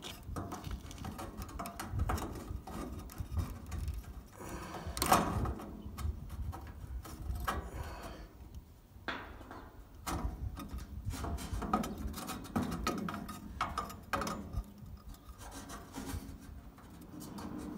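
Hands untwisting electrical wires and handling plastic wire nuts in a swamp cooler's junction box: scattered small clicks and rubbing, with a low rumble underneath.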